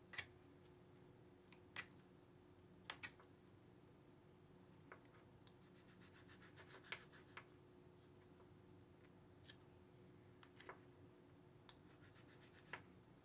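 Faint scraping of a small skinning knife working the hide off a deer's foot, with a few sharp clicks scattered through and a run of quick small scrapes near the middle.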